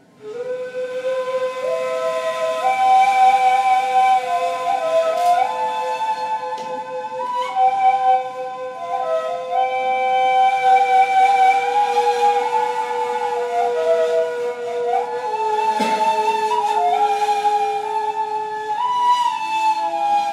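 Two neys, end-blown reed flutes, improvising in a modal style: one holds a long, low sustained note while the other moves through a melody in small steps above it. The playing comes in suddenly at the very start, and the low held note drops a step near the end.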